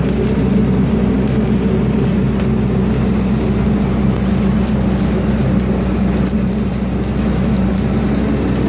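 Stick welding with 1/8-inch 7018 rod at 125 amps: a steady arc crackle and sizzle, over the steady running of a Lincoln Vantage 300 engine-driven welder's engine.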